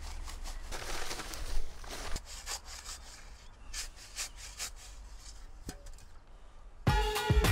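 Dry quick-setting concrete mix pouring and rustling out of a paper sack around a fence-post anchor, then a garden-hose spray nozzle wetting the concrete. Music starts sharply near the end.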